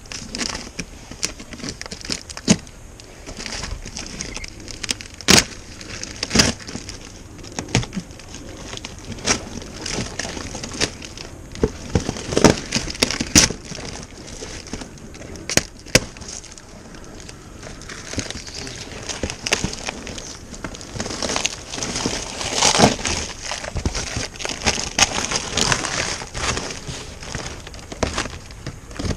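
Packaging being pulled open and unwrapped by hand: crinkling and crackling, with many scattered sharp clicks and knocks.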